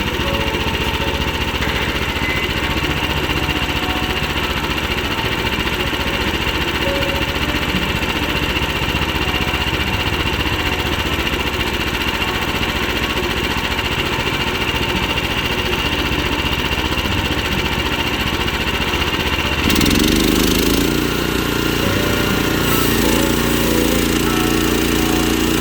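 Portable sawmill's small gas engine running steadily under load. About twenty seconds in, the pitch rises and the sound grows a little louder and brighter.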